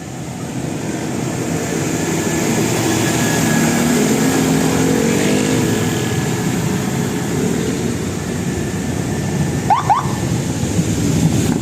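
A large bus driving past close by: engine and tyre noise build up over the first few seconds, and the engine note bends up and then down as it passes. About ten seconds in come two short rising whistle-like chirps.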